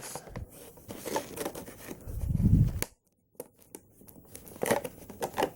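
Plastic toy packaging rustling and crinkling, with scattered clicks as small plastic weapons are worked out of their tray, and a dull low bump about two seconds in.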